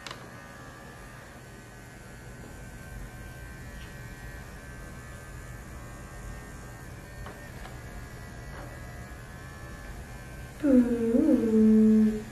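Wahl Bravura cordless clipper buzzing steadily as it trims the hair between a puppy's paw pads. Near the end the puppy cries out with a loud, drawn-out whine that bends up and then holds, as if the blade pinched it.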